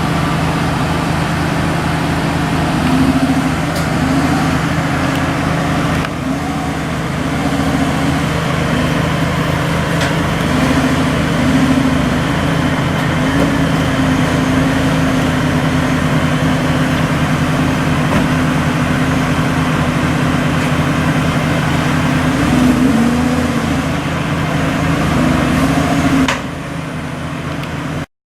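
Car engine idling steadily with a pulsing exhaust note, dropping to a quieter level near the end.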